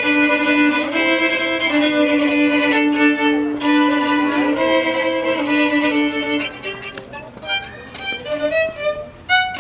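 Solo violin playing a melody of held, bowed notes. In the last few seconds the notes become softer and shorter.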